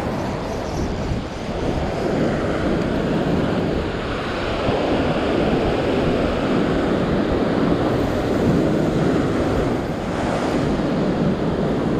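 Ocean surf breaking and washing over a rock shelf, with wind buffeting the microphone.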